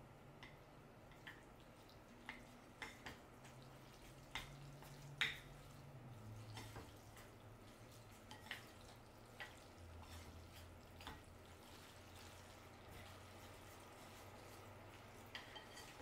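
Faint, scattered clicks of wooden chopsticks against ceramic bowls as jajangmyeon noodles are mixed, the sharpest about five seconds in, over a low steady hum.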